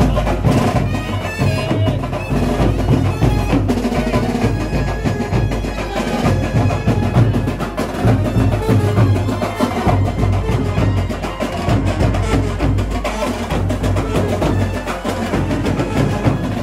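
Live street band music played loud: a fast, driving drum beat with a saxophone carrying the melody.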